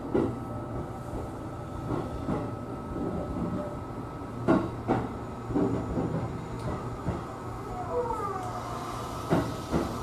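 Cabin of a JR East E233-series electric commuter train running slowly into a station. The wheels rumble steadily and knock sharply over rail joints and points a few times. A wavering squeal from the wheels comes in about eight seconds in.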